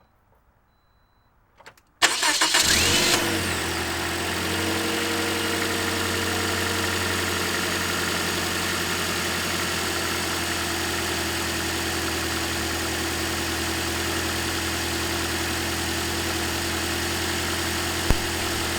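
2010 Toyota Corolla four-cylinder engine cranking and catching about two seconds in, with a loud, rough rattle for about a second before it settles into a steady idle. The start-up rattle is typical of a VVT-i cam sprocket that needs replacing, heard only on a cold start until the oil circulates. A single sharp click comes near the end.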